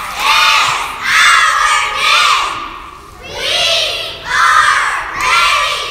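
A squad of young girls shouting a cheer in unison. Short chanted phrases come about once a second, with a brief pause near the middle.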